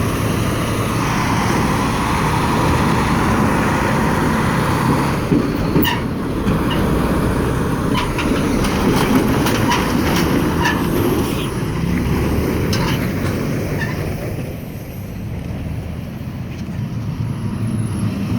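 Forklift running and rattling as it drives, with a scatter of sharp clanks in the middle; it gets somewhat quieter near the end.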